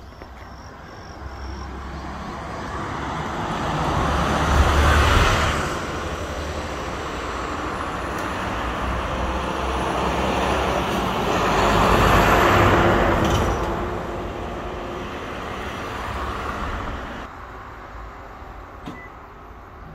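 Road traffic: two vehicles drive past close by, one about five seconds in and another about twelve seconds in, each swelling up and then fading away, with a smaller swell near the end.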